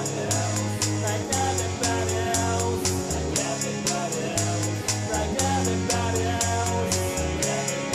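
A rock song with a steady drum beat, bright cymbal hits and a bass line stepping between held low notes, with guitar over it.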